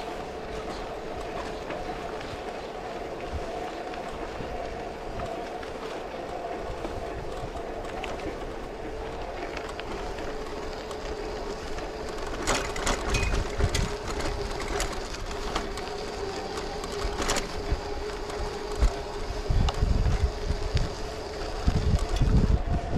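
An electric-assist bike motor whines steadily at one pitch while the bike rolls over a gravel track, with tyre noise throughout. Sharp knocks come twice, about halfway through, from bumps in the track. Gusty wind rumbles on the microphone in the second half, growing stronger near the end.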